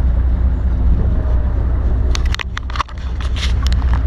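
Boat engine running steadily with a low hum, with a few sharp knocks and clatter about halfway through.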